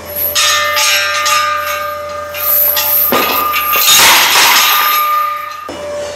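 Background music with bell-like chiming and a rushing whoosh about three seconds in.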